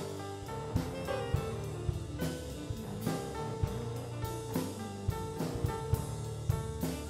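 Instrumental background music with a steady drum beat and pitched instruments.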